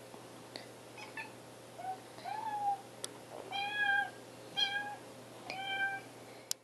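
Young kitten meowing repeatedly in high, thin calls, about half a dozen, the later ones longer and louder. A few light clicks sound in between.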